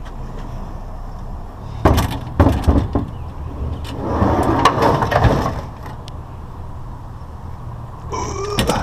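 Scrap being handled: a few sharp clanks and knocks about two seconds in, a rattling, scraping stretch a little later, and a short squeak near the end, over a steady low hum.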